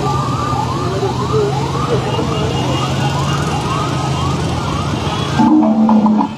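Vehicle siren sounding a rapid rising whoop, about two a second, over the steady low hum of engines. About five seconds in it gives way abruptly to music with short struck notes.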